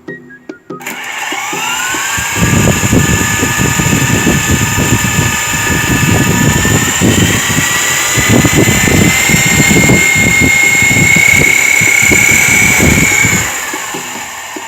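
Electric RC helicopter motor and rotor spooling up about a second in, its whine rising in pitch and then holding steady and high. Heavy low buffeting on the microphone from wind or rotor wash runs under it, and near the end the whine drops away as the motor slows.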